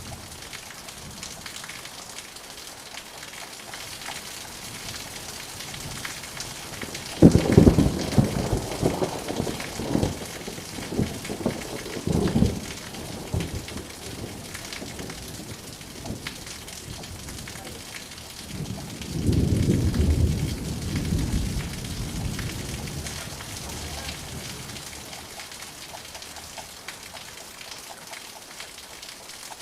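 Steady rain hissing with thunder: a sudden loud clap about seven seconds in that rolls on in waves for about five seconds, then a second low rumble about twenty seconds in.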